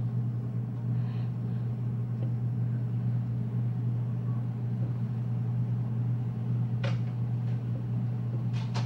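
Steady low hum of a running motor or appliance, with a few faint clicks near the end.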